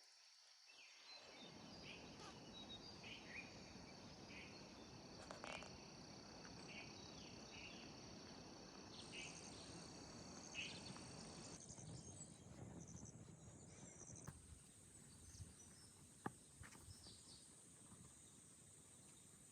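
Faint rural ambience: steady high-pitched insect chirring, with a few short bird chirps scattered through it.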